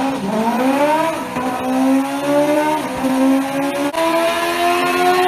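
Benda LFC700 motorcycle engine at full throttle on a chassis dyno through a valved aftermarket exhaust, its pitch climbing until a gear change about a second in, then pulling steadily and slowly higher in top gear during a top-speed run.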